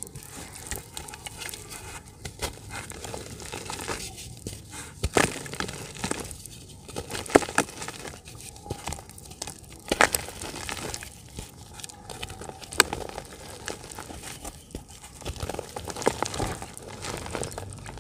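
Chunks of dry yellow dirt snapped and crumbled by hand, crumbs falling into a bucket of water: continuous gritty crunching and crackling with a few sharp, loud snaps.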